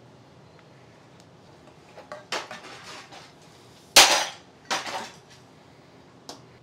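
Metal hand truck and a heavy battery cabinet clattering as the cabinet is slid off the nose plate: scrapes and clanks, then a loud metal bang about four seconds in as the hand truck is shoved upright, followed by a shorter rattle and a small click near the end.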